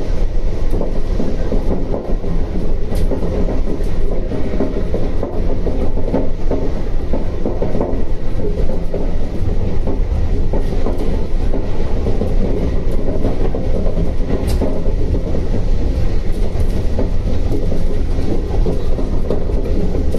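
Shonan Monorail Series 5000 suspended monorail car running between stations, heard from inside the car: a steady rumble with a couple of faint clicks.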